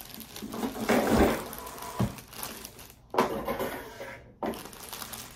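Thin plastic bag crinkling and rustling as a heavy appliance wrapped in it is handled and lifted. There are a couple of dull thumps in the first two seconds.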